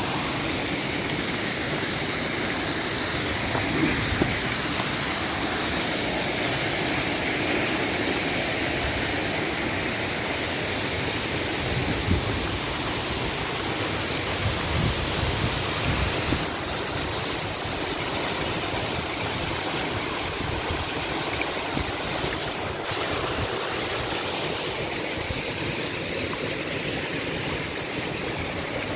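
Steady rain falling, a dense even hiss that eases slightly about halfway through.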